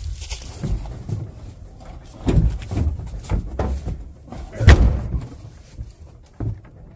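Several dull thumps and knocks, the loudest nearly five seconds in, from a person stepping and shifting about on a pickup truck's bed.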